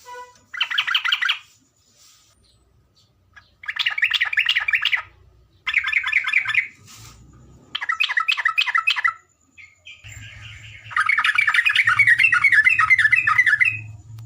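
Yellow-vented bulbul (terocok) singing in short, bubbly phrases of rapid notes. There are five phrases of about a second each, then a longer run of nearly three seconds near the end.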